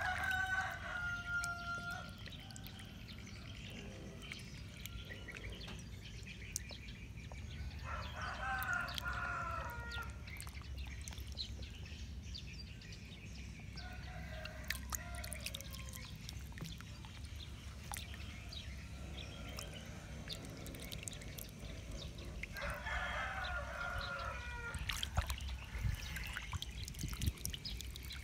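A rooster crowing several times, each crow about two seconds long, the last one dropping in pitch at its end. Under the crows, water splashes and trickles as a hand stirs and lifts goldfish in a shallow basket of water.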